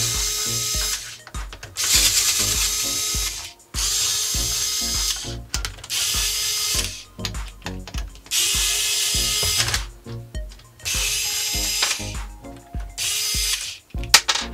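Cordless electric screwdriver running in repeated short bursts of about a second each, backing screws out of a small two-stroke engine's pull-starter housing.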